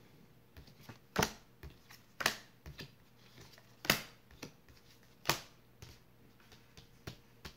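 Tarot cards being dealt one by one onto a hard tabletop: four sharp slaps of card on table a second or more apart, with softer ticks and rustles between.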